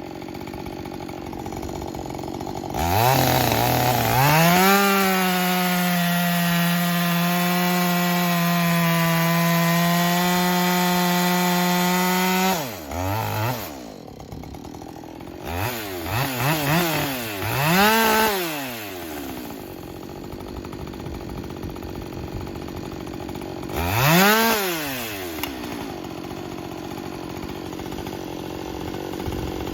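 Husqvarna 562 XP two-stroke chainsaw with a 24-inch bar and a new full-chisel chain, revving up from idle and holding a steady full-throttle pitch for about eight seconds, as in a cut through wood, then dropping back. It is then revved in three short blips and once more, settling back to idle between them.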